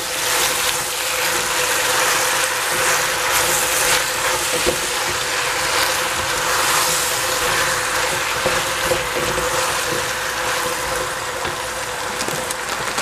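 Vegetables sizzling as they stir-fry in a stainless steel pot, stirred with a wooden spatula that scrapes and knocks against the pot now and then. A steady hum runs underneath.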